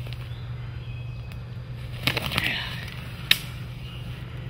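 Rustle of feathers and undergrowth from a freshly shot wild turkey being carried and swung by its legs, briefly about two seconds in, followed by a single sharp click.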